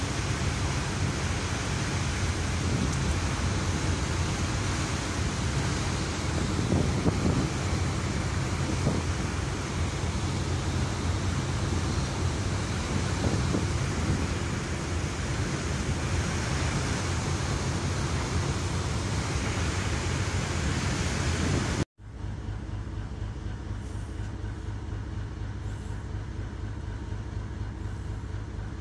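Steady drone of a ship's engine under the rush of wind and churning wake water on a moving ship's deck. About two-thirds of the way through it cuts abruptly to a quieter, even engine hum.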